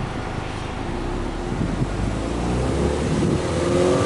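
Subaru Impreza WRX STI's turbocharged flat-four boxer engine heard at the exhaust, free-revving in neutral: the revs climb slowly and the exhaust note grows louder from about a second and a half in.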